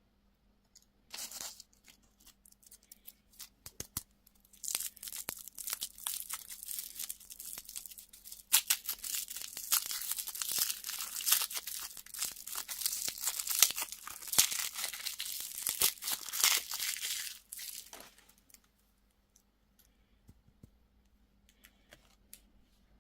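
A candy wrapper being torn open and crinkled by hand: a brief rustle about a second in, then a dense run of crackling and tearing that stops about 18 seconds in.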